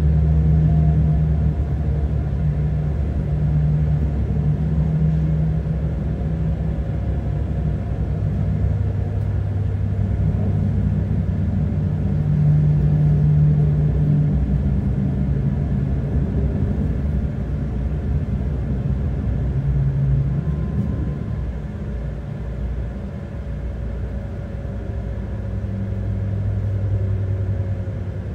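Inside a Pesa Link (class 632) diesel multiple unit under way: a steady diesel drone and rail rumble. The engine's low hum shifts in pitch now and then.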